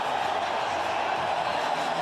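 Arena crowd noise: a steady din of many voices in a large hockey arena.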